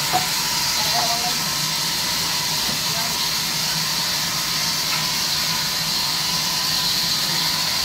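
Large band sawmill running steadily: a constant hiss over a low hum, with a small knock just after the start.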